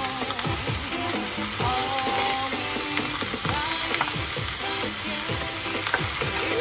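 Raw chicken pieces sizzling as they hit hot oil and sautéed aromatics in a stainless steel pot, stirred with a wooden spoon, steady throughout. Background music plays over it.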